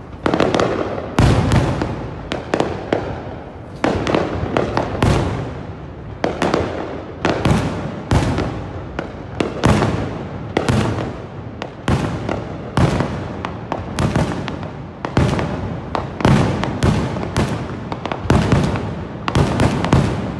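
Fireworks display: bangs going off one after another, roughly one or two a second, each fading out before the next.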